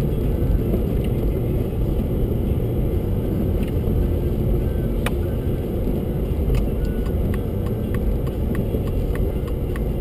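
Steady low road and engine noise inside a car's cabin while driving on slushy, snow-covered streets. From about halfway through, a light ticking comes in at about three ticks a second.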